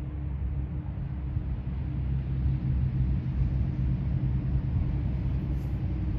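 Great Lakes self-unloading freighter Algoma Sault passing close by, its engines giving a steady low drone with a hum. It grows slightly louder about a second and a half in.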